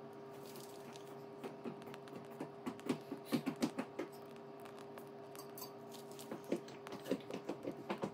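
Quick, irregular patter of a toddler's footsteps in new shoes, light clicks coming in clusters, over a faint steady hum.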